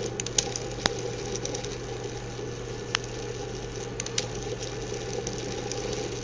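Small fischertechnik DC motor running steadily on PWM through a transistor, a continuous whirring hum with a few sharp clicks. The motor running is the sign that the swapped-in transistor now works.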